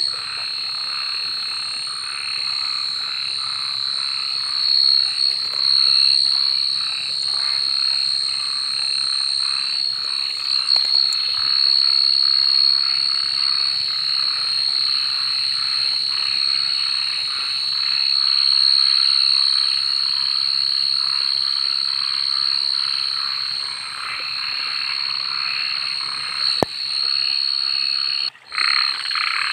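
Dense chorus of frogs calling, many short croaks overlapping over a steady high-pitched trill. The sound briefly cuts out near the end.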